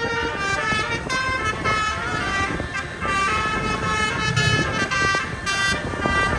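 Indonesian bus 'telolet basuri' 24-note musical horn playing a quick tune, note after note, over a low rumble.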